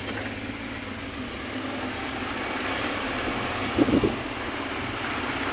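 Steady road and engine noise heard from inside a moving vehicle, with a brief pitched sound about four seconds in.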